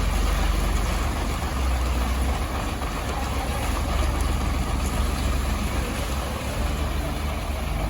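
A fishing boat's engine running steadily: a low, continuous rumble with an even hiss over it.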